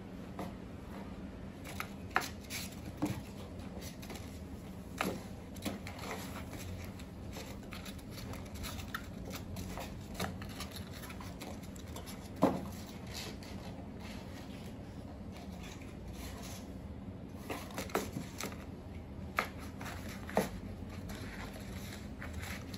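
A cat playing with a crumpled paper ball inside a cardboard box: scattered crackles of the paper and scratches and taps against the cardboard as it bats and bites the ball. The loudest crackle comes about halfway through, with a cluster near the end.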